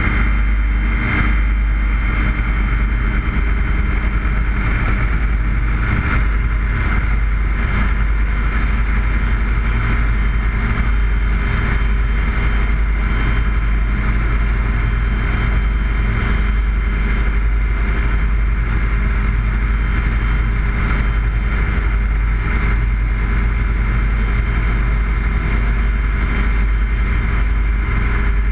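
An engine running steadily at a constant speed, with no revving or change in pitch.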